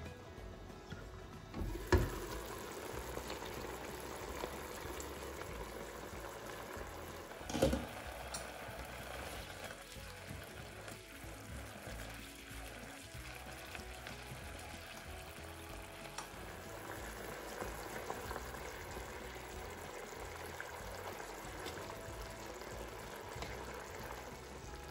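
Soy-sauce adobo braise simmering and bubbling in an open wok as the pork belly and chicken pieces are stirred and turned with a utensil. Two sharp knocks, about 2 and 7.5 seconds in.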